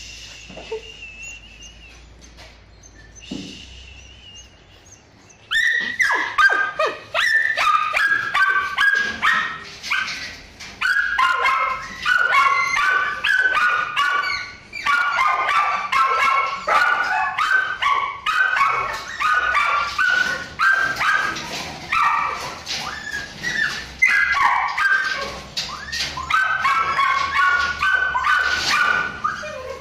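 Kennel dogs: first a high, thin whine, then from about five seconds in several dogs bark continuously, their barks overlapping without a break.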